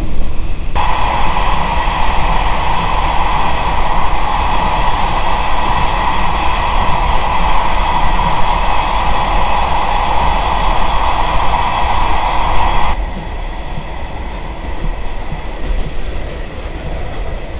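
Rebuilt KiHa 40-series diesel railcar slowing into its terminal station, heard from inside the carriage. A long, steady metallic squeal from the train cuts off suddenly about 13 seconds in, leaving the quieter rumble of the train.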